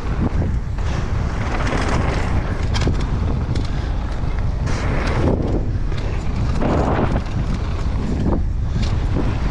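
Wind buffeting the microphone of a camera on a downhill mountain bike riding fast over a dirt track, with the tyres rushing over loose dirt and gravel. The noise swells several times, with scattered clicks and rattles from the bike over the bumps.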